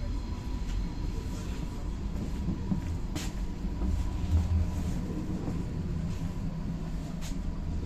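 Interior of a moving SKM suburban electric train: steady low running rumble with a faint steady whine, and two sharp clicks about four seconds apart.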